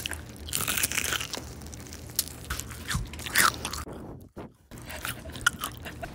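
Crispy Korean fried chicken being bitten into and chewed up close, a run of sharp crunches and crackles of the crust, briefly cutting out just past the middle.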